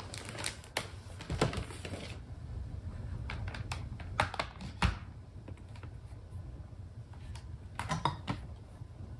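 Small plastic basket of toiletry bottles and tubes being handled and set down on a counter: scattered light clicks, knocks and rattles of plastic and bottles in short clusters, with a firmer knock about five seconds in.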